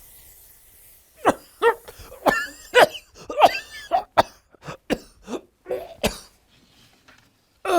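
A person coughing and clearing their throat in a run of short, separate coughs.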